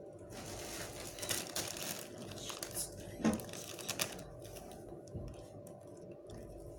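Small objects being handled on a table: rustling with scattered sharp clicks, the loudest about three seconds in, over a faint steady hum.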